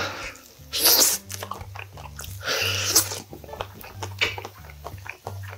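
Close-up eating sounds of a man biting meat off a grilled pork back rib and chewing: two louder noisy bursts, about a second in and again near three seconds, with small wet chewing clicks between. Background music with a low bass line runs underneath.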